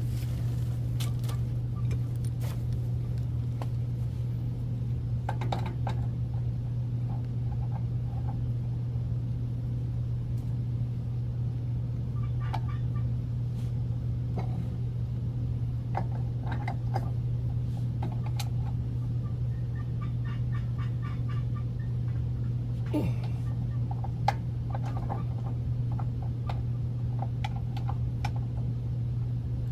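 Metal tools and pipe fittings clinking and tapping now and then, with one sharper knock a little over twenty seconds in, over a steady low hum.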